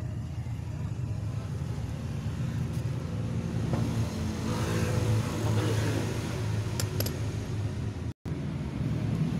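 Steady low motor hum with a few light clicks near the end.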